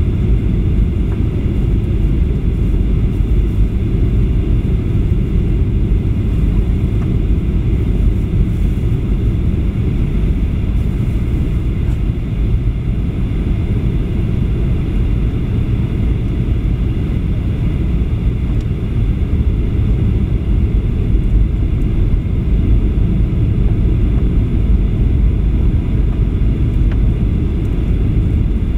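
Steady low rumble of a Boeing 737-800's airflow and CFM56-7B engines, heard inside the cabin on the descent toward landing.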